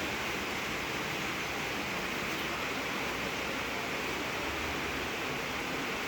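Steady, continuous rainfall, an even hiss of rain with no single drops or other events standing out.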